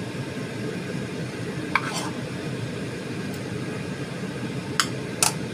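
A steady low hum with a few light, sharp clinks of a metal spoon against a ceramic plate, two about two seconds in and two more near the end.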